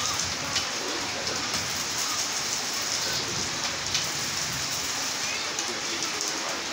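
Steady rain falling, an even hiss sprinkled with sharp ticks, with the frying crackle of a stick welder's arc in it while the arc is struck.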